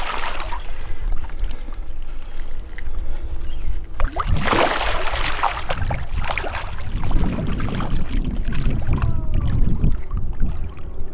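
Water splashing and sloshing at the river's edge, with the loudest splash about four seconds in and more uneven splashing a few seconds later, over a steady low rumble.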